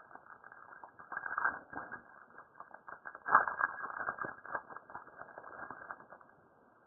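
Trading card pack and cards being handled: dense crackling and clicking of the wrapper and card stock, in two busy spells, stopping about six seconds in.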